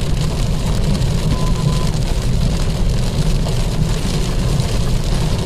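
Loud, steady rumble of high wind buffeting the microphone, with the hiss of heavy, driving rain.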